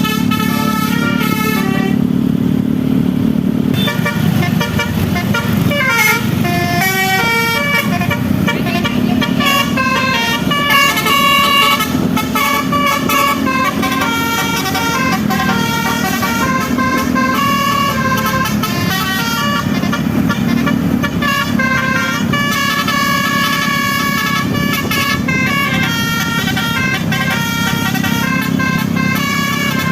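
A bus's multi-note 'telolet' musical air horn (basuri type) playing a melody, one held note after another, over a steady low rumble.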